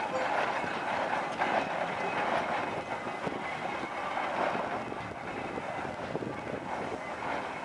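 Steam traction engine running as it moves slowly over concrete, a steady mechanical clatter and hiss.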